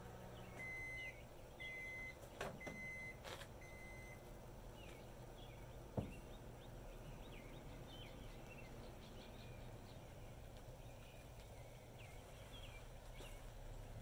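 Microwave oven beeping four times, evenly about a second apart: its end-of-cycle signal. A few sharp clicks follow, then a single knock about six seconds in, with faint bird chirps throughout.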